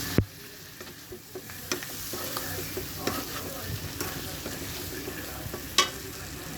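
Chicken liver fry sizzling in a kadai as it is stirred, the spoon scraping and clinking against the pan. A sharp knock of the spoon on the pan comes just after the start and another near the end.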